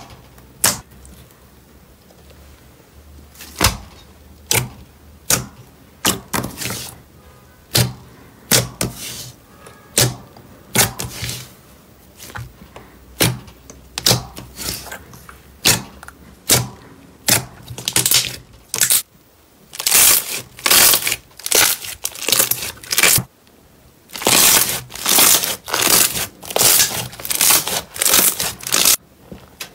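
Glossy green slime being poked, folded and kneaded by hand, giving a run of sharp sticky pops and squelches. The pops come singly and spaced out at first, then turn quicker and longer, packed close together near the end as the slime is pressed and kneaded hard.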